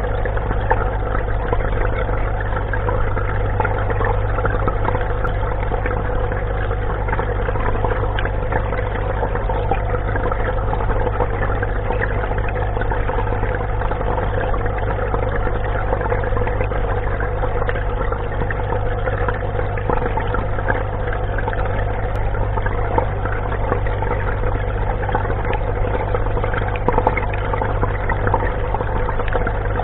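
Steady low machine hum with water rushing, from the pump and water flow of an intensive crayfish tray system.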